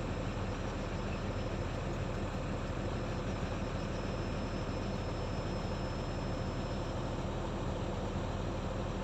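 Steady low hum of a heavy diesel engine running at constant speed, with no revving or impacts.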